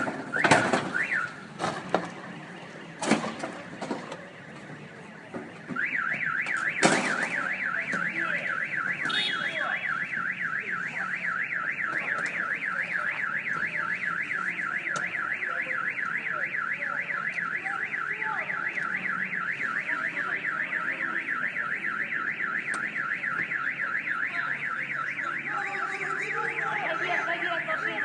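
A few sharp knocks or cracks in the first seconds. About six seconds in, an electronic alarm starts a rapid, steady high warble that goes on unbroken.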